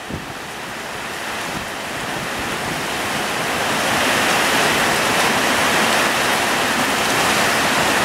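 Heavy rain pouring onto leafy trees in strong wind, a dense steady hiss that grows louder over the first few seconds and then holds.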